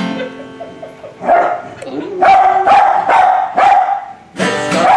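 Tibetan terrier howling along, with short yelping calls from about a second in, then a long held high note, and more calls starting again near the end.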